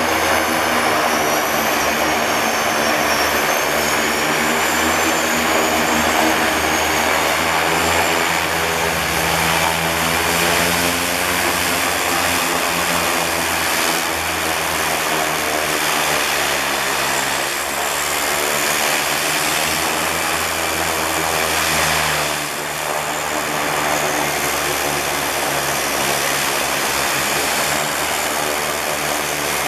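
De Havilland Canada DHC-6 Twin Otter floatplane's two PT6A turboprop engines running at low power as it taxis in and sits at the dock: a steady propeller drone under a high turbine whine that wavers in pitch over the first several seconds.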